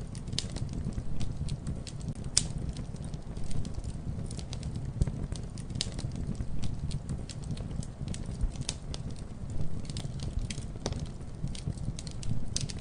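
Wood fire crackling: a steady low rumble of flames with frequent irregular sharp pops and snaps, one louder snap about two seconds in.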